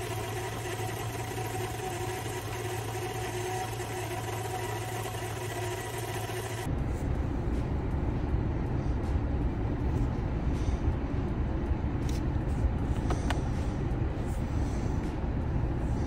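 2001 Z71's engine idling with a steady whine of several pitches from the belt drive: the sign of a bad pulley, not a destroyed engine. About seven seconds in it cuts to a louder, low steady rumble inside a car cabin, with a few faint clicks.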